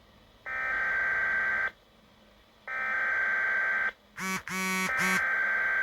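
Emergency Alert System SAME digital header sent three times: three buzzy, modem-like data bursts about a second long, with a second's pause between them. A few short stuttering tones cut in over the start of the third burst. The bursts mark the start of a new alert message on the weather radio.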